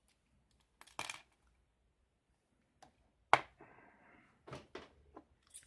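Handling of padlocks and lock picks. There is a knock about a second in and a sharp metallic clack a little after three seconds in, the loudest sound, then a brief rustle and a few lighter clicks.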